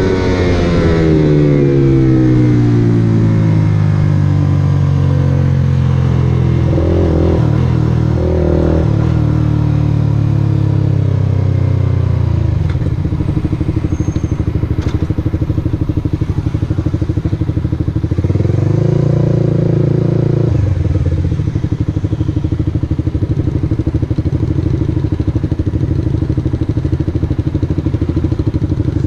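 Suzuki GSX-R150 single-cylinder engine heard from the rider's seat. It drops in pitch as the bike slows from speed, with two short throttle blips around 7 and 9 seconds in. It rises briefly around 19 seconds in, then settles into a steady, pulsing idle as the bike stops.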